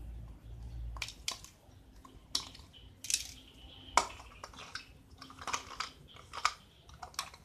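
Scissors snipping and aluminium soft-drink cans being handled, giving a string of sharp clicks and knocks against a tile floor, the loudest about four seconds in.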